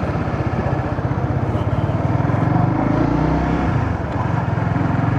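A small sport motorcycle's engine running steadily, its rapid firing pulses continuous, with the engine note rising and falling a little.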